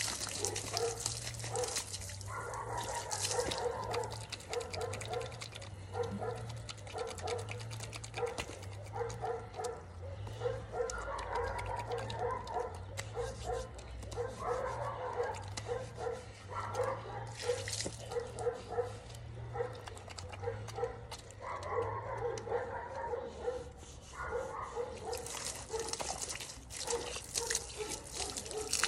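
Water from a garden hose spraying and splashing on wet concrete, loudest near the start and again near the end. Under it runs a regular beat of short repeated sounds, about one and a half a second.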